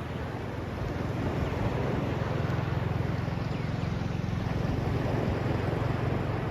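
Steady rush of sea surf on a beach with wind on the microphone. A low rumble swells through the middle and eases off near the end.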